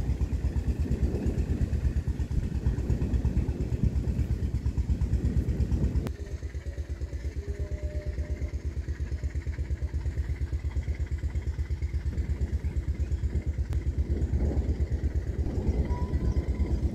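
An engine running steadily, a rapid, even low thrum that drops a little in level about six seconds in.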